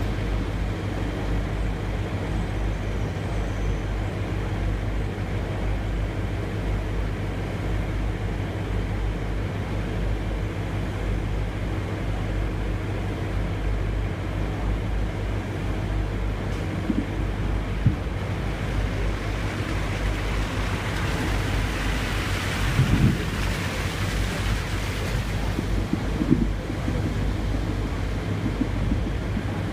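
Steady low drone of running industrial machinery. A few short dull thuds come in the second half, and a hiss swells and fades again in the middle of it.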